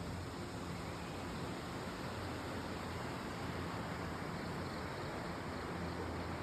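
Steady rushing water, an even hiss with no breaks, with a faint low hum underneath.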